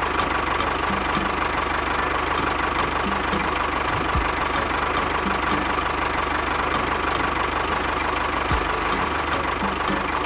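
Tractor engine running steadily, with a regular knock about three times a second.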